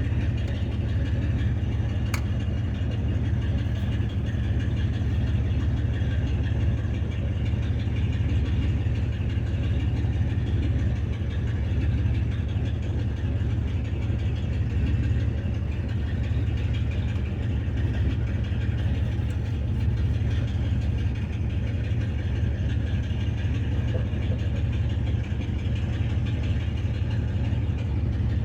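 Engine idling steadily, a low, even rumble with no change in speed, and one faint click about two seconds in.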